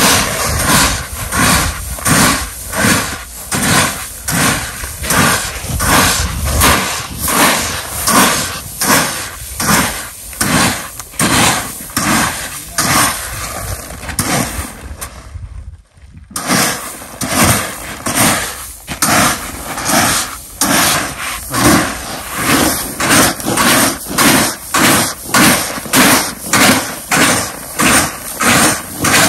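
Plastic pans scooping into a heap of chickpea seed and DAP fertilizer granules and tipping it back, mixing it by hand: a rhythmic rush of pouring granules about three times every two seconds, with a brief break just past halfway.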